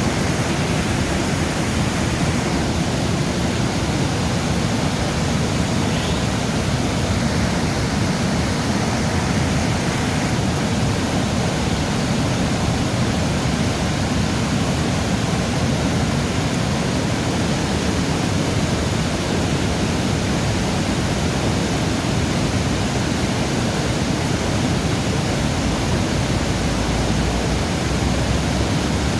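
Steady, loud rushing of water, an even unbroken hiss with no separate splashes or events.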